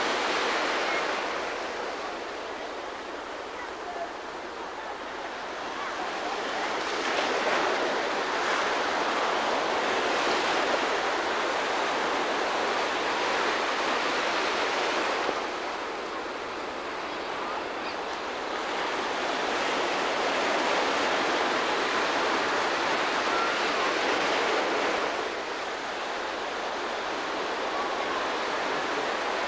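Ocean surf breaking and washing in: a continuous rush of foaming water that swells louder and eases off several times.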